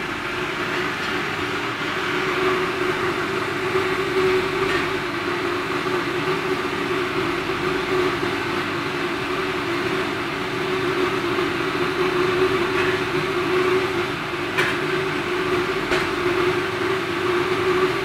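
Package-type steam boiler plant running: a steady mechanical drone with a constant hum underneath.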